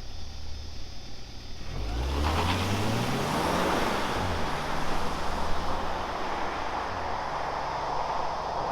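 The 2.0-litre turbocharged and supercharged four-cylinder of a Volvo XC60 T8 Polestar Engineered hybrid idles. About two seconds in it pulls away hard, its pitch rising, then drops as it shifts up a gear about four seconds in, and it runs on under acceleration with road and wind noise. The exhaust note is very quiet, with no sports exhaust.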